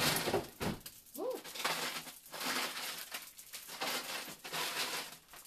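Plastic bags of frozen peas and carrots rustling and crinkling in irregular bursts as they are rummaged out of a freezer drawer.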